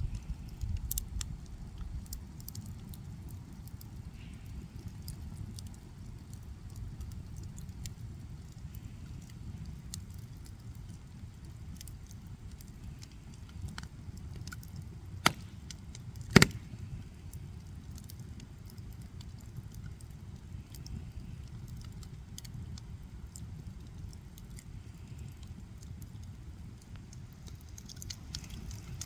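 A fire burning and crackling: scattered small crackles over a steady low rush, with two sharp, loud pops about a second apart near the middle.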